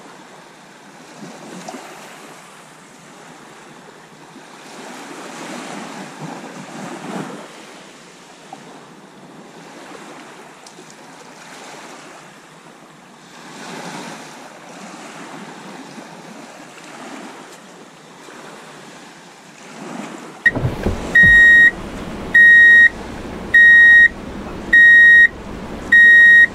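Small waves breaking and washing up a shingle beach, swelling and fading every few seconds. About twenty seconds in, a loud electronic beep starts, one steady high tone repeating about once a second.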